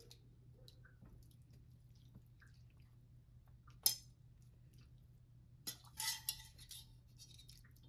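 Wire spider strainer clinking against a stainless steel pot and foil pan as vegetables are scooped out of broth: faint small taps, one sharp click about four seconds in, and a cluster of ringing metal clinks near the end.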